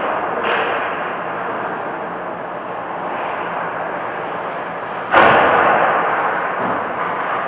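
Steady rushing vehicle noise, with a sudden loud thump about five seconds in that dies away over a second or two.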